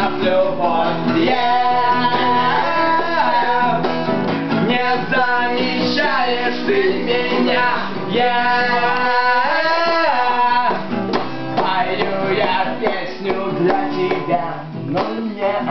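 Acoustic guitar strummed in a tango rhythm, with a voice singing a melody over it for roughly the first ten seconds; after that the guitar carries on with quick strums.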